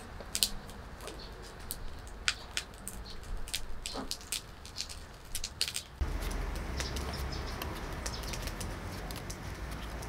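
Large kitchen knife cutting through a raw pumpkin on a wooden chopping board, with a run of short, sharp crunching clicks. About six seconds in, the sound changes to a steadier background with the knife scraping seeds out of the pumpkin's cavity.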